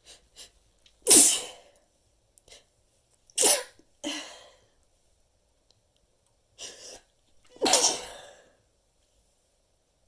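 A person stifling three sneezes in a row, each a short sharp burst: one about a second in, the next about two seconds later, and the last about four seconds after that, with quieter sounds in between.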